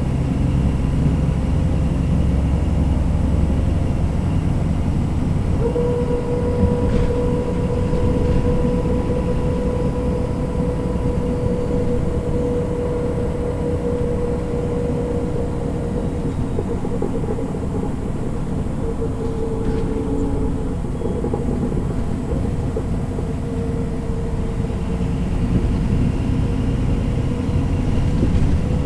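MAN NG 313 articulated city bus's diesel engine and driveline running with a steady low rumble. A steady whine joins about six seconds in and comes and goes in the second half.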